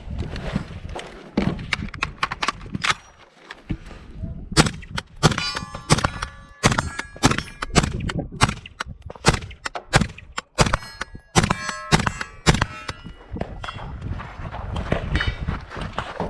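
A rapid string of sharp rifle shots, two or three a second for about eight seconds starting about four seconds in, some followed by a metallic ring.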